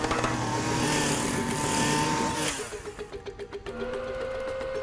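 Film soundtrack: a loud, hissing mechanical rush with steady whirring tones for about two and a half seconds, then cutting off, over a quick, evenly pulsing musical pattern that carries on with a held note entering near the end.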